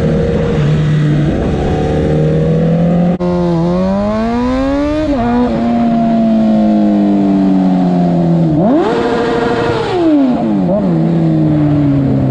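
Sport motorcycle engine riding under power. It runs steadily at first. After about three seconds its pitch climbs and drops back at a gear change, holds steady, then revs hard for about a second near the nine-second mark before falling away as the bike slows.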